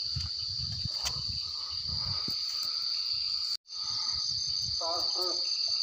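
Night insects calling in a steady high-pitched chorus, over low irregular rumbling and thumps. The sound cuts out completely for a moment about three and a half seconds in.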